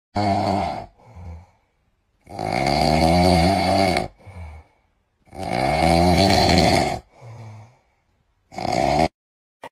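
French bulldog snoring loudly: four rasping snores, the middle two long, each followed by a shorter, softer breath.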